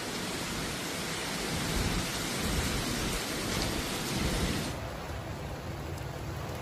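Heavy rain pouring down, a dense steady hiss with low rumbling swells. It cuts off abruptly about three-quarters of the way through, giving way to a quieter, duller steady noise with a low hum.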